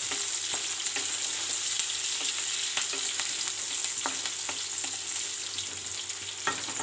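Sliced onions frying in hot oil in a kadai: a steady sizzle, with the scrapes and taps of a wooden spatula stirring them.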